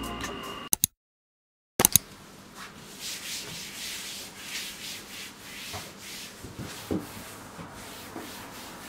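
A cleaning cloth rubbed back and forth across a desktop, a run of swishing wiping strokes about two a second, after a brief fade of background music and a moment of silence.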